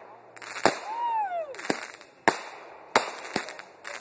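Aerial fireworks bursting overhead: a string of five or six sharp bangs in four seconds, the loudest less than a second in. A high whistle rises and falls about a second in.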